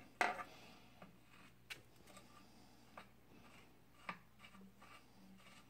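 A few light metallic clicks and taps as a pedal and hex key are worked against a bicycle crank arm while the pedal is threaded on, the first click the sharpest, the rest sparse and faint.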